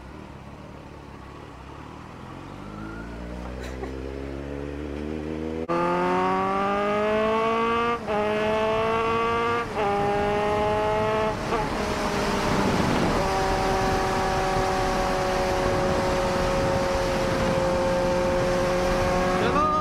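Kawasaki Z900's inline-four engine accelerating hard through the gears: the pitch climbs in each gear, broken by three quick upshifts, then holds a steady high note at speed. Wind rushes past the helmet camera.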